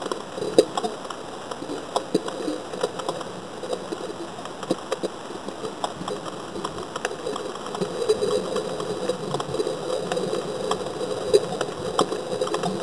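Underwater ambience picked up by a submerged camera: many scattered sharp clicks and crackles over a steady low hum.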